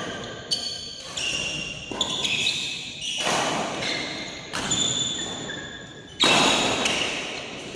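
Badminton rackets striking a shuttlecock in a rally, several sharp echoing hits with the loudest about six seconds in, with short high squeaks of shoes on the court mat between them.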